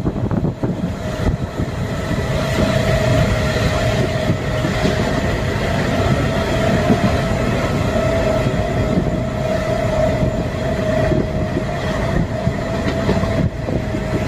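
DEMU (diesel-electric multiple unit) passenger train running at speed, heard from inside at an open window: a continuous rumble of wheels on the track with a steady whine held over it.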